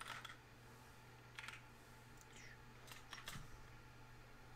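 Faint, scattered computer keyboard clicks over a low steady hum.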